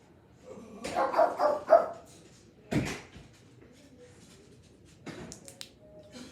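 A dog barks about four times in quick succession, about a second in, followed a second later by a single sharp thump.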